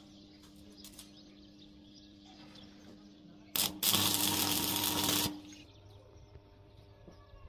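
Stick (arc) welding with a coated electrode: the arc strikes with a short crackle about three and a half seconds in, catches again a moment later and crackles and sizzles loudly for about a second and a half, a short tack weld on the steel bars, then stops.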